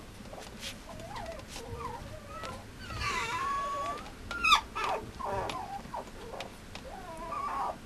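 Mame shiba puppy whimpering and whining in a series of short, wavering high whines. A sharp high squeak comes about halfway through.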